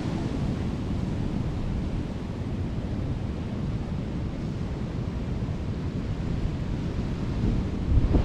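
Strong wind blowing across the microphone, a steady low rumble of wind noise.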